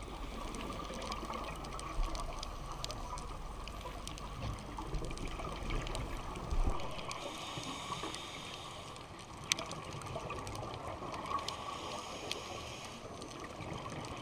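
Steady muffled underwater noise, a watery hiss with a few faint clicks.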